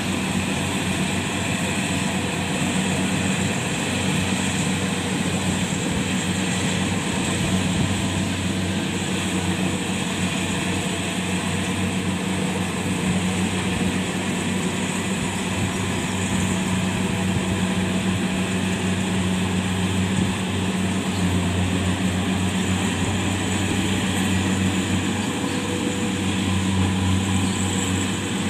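Rice harvester's engine running steadily, a constant low hum with machinery noise that holds at one level throughout.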